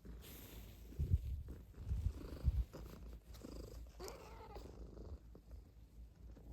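Calico cat purring close to the microphone, a low rumble in uneven pulses, with one short gliding call from the cat about four seconds in.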